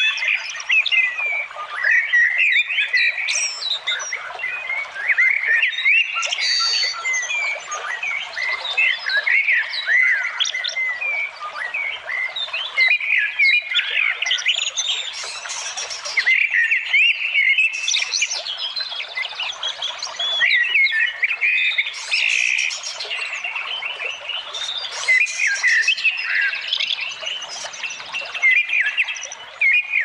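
A dense chorus of many wild birds chirping and calling at once, quick rising and falling notes overlapping without pause, over a steady rush of flowing water.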